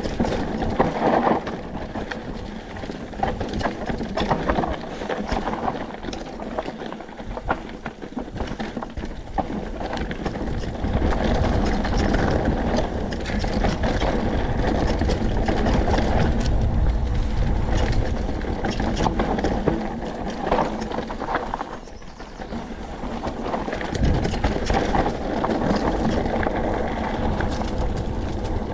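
Mountain bike descending loose, rocky dirt singletrack: tyres crunching over dirt and stones, the bike rattling with many small clicks, and wind buffeting the microphone in a heavy low rumble that swells about a third of the way in and again near the end.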